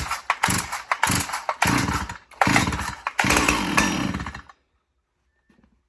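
Stihl MS361 60cc two-stroke chainsaw on full choke, pull-started: the engine fires in a string of short bursts and runs briefly, then cuts out suddenly about four and a half seconds in. This is the stall on full choke that calls for switching the saw to half choke.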